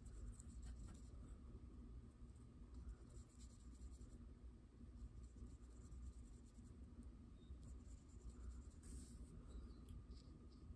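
Faint scratching of a paintbrush working acrylic paint on paper in short, irregular strokes, over a steady low hum.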